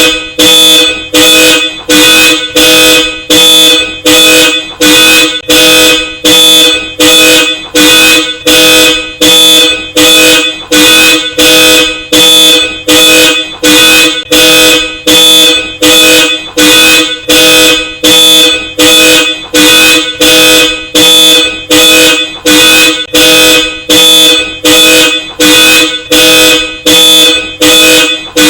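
A car alarm sounding through a Hella Supertone dual-tone car horn, which honks in short, even blasts about three every two seconds, over and over.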